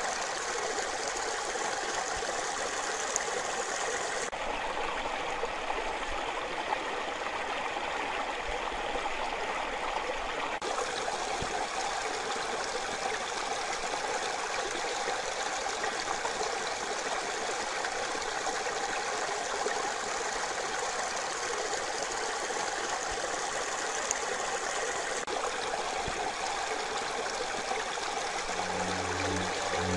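Mountain stream rushing over stones as a steady, even rush of water, its tone shifting abruptly a few times. Music comes in right at the end.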